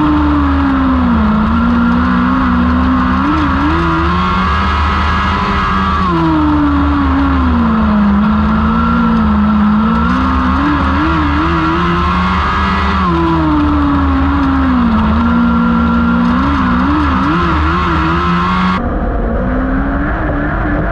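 A Lightning sprint car's 1000cc motorcycle engine lapping a small dirt oval. The revs drop into each turn and climb again down the straights, repeating about every six and a half seconds with a brief wavering in pitch coming off each corner. The sound changes abruptly a little before the end.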